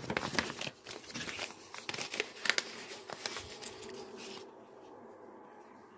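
Paper envelopes rustling and crinkling in the hands as a folded kraft envelope is pulled out of a red paper envelope. The rustling stops about four seconds in.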